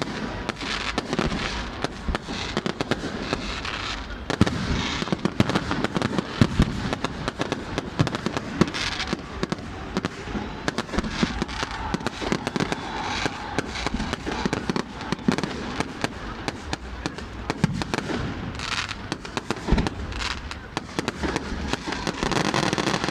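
A fireworks display going off without pause: rapid crackling and popping, with louder bangs scattered through.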